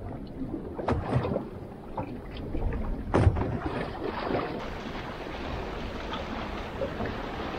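Wind on the microphone and water moving against a small boat's hull, with two sharp knocks about a second and three seconds in.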